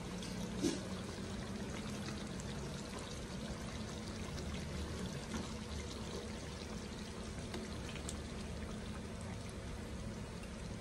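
Chicken in coconut-milk sauce simmering in a metal pan, the sauce bubbling and sloshing as a black plastic ladle stirs and scoops through it, with one light knock of the ladle about a second in.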